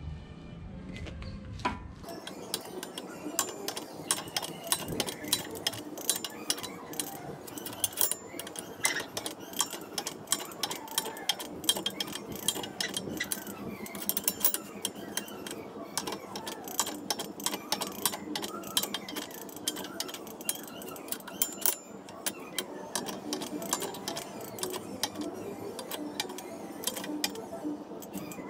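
Background music with a fast, busy clicking beat and a wavering melody.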